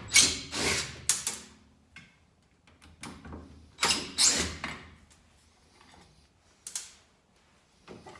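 Clunks, clicks and scrapes of metal hardware being worked on a school bus's rear emergency door and its alarm switch housing. They come in short clusters, loudest in the first second, with more around four seconds in and single knocks near the end.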